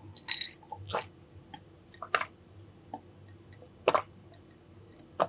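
Chewing with scattered wet mouth clicks and smacks, about five sharp ones over a few seconds.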